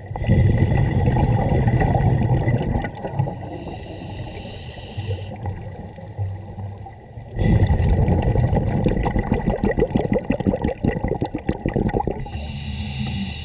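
Scuba diver breathing through a regulator underwater: two long exhalations of bubbling and gurgling, one at the start and one about seven seconds in. A hissing inhalation through the regulator comes between them and again near the end.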